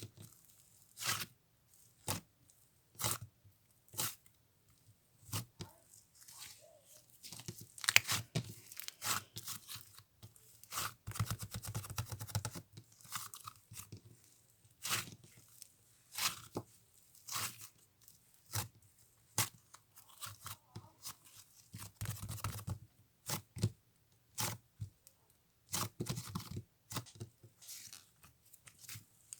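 Gelato slime being squished and stretched by hand, giving irregular sticky pops and crackles, with a couple of denser runs of crackling partway through.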